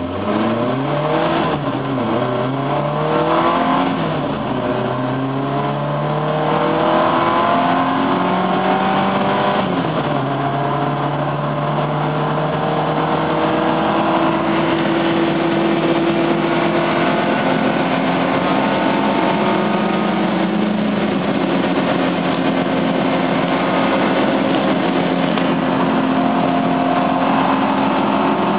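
Simca 1000 Rallye 1 rear-mounted 1118 cc four-cylinder engine under hard acceleration, heard from inside the cabin. The revs climb and drop back with a few quick upshifts in the first ten seconds, then the engine pulls long in a high gear, its pitch rising slowly and steadily.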